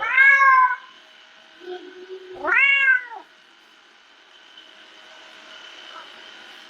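A house cat meowing twice, two drawn-out meows that rise and fall in pitch, about two seconds apart.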